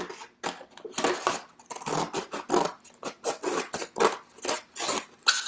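Scissors cutting through a paper plate: a steady run of short snips, about two a second.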